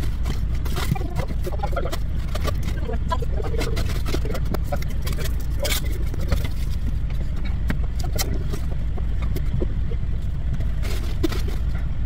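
Steady low rumble of a semi-truck's diesel engine idling, heard inside the cab, with plastic bags rustling and scattered clicks and knocks.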